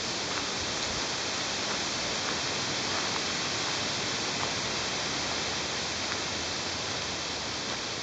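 Breeze rustling the leaves of the tree canopy, a steady even hiss with a few faint ticks.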